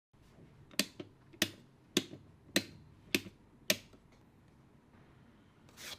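A wall switch clicking six times in a steady rhythm, about every 0.6 s, each sharp click mostly followed by a fainter second click like a press and release. A soft rising noise comes in near the end.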